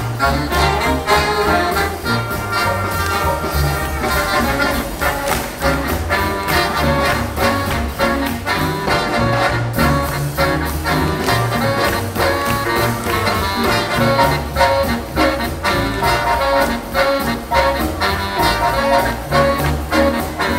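Big band swing music: a brass section of trumpets and trombones over a steady swing beat.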